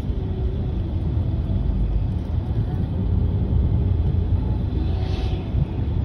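Steady low rumble of a road vehicle driving along, heard from inside the cabin, with a short hiss about five seconds in.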